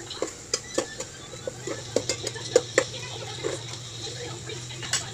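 Kitchen utensils and dishes clattering: irregular clinks and knocks of metal and crockery being handled during cooking preparation, a few louder than the rest, over a steady low hum.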